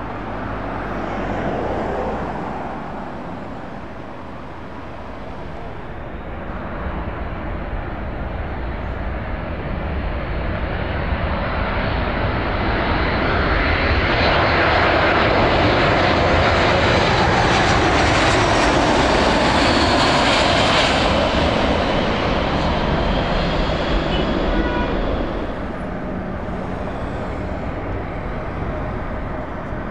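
A Boeing C-17 Globemaster III transport jet's four turbofan engines on a low approach. The sound builds over about ten seconds to its loudest as the aircraft passes overhead, then drops back down a few seconds before the end.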